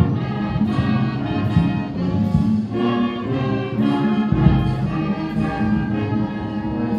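Brass band music: held chords and a moving melody from brass instruments, with a brief low thump about four and a half seconds in.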